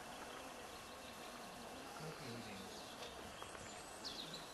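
Quiet outdoor background noise, with a few short high chirps about four seconds in.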